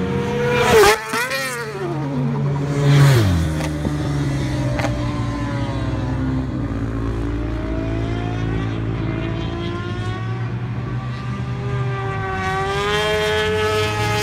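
Yamaha TMAX racing scooters at speed on a circuit. Two pass close by in the first few seconds, each with a sharp drop in engine pitch. Engines farther round the track follow, rising and falling in pitch, and they grow louder near the end as another approaches.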